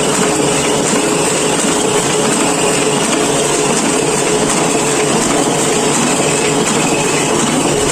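Hamada B52-SF offset printing press running, a steady mechanical noise with a constant hum throughout.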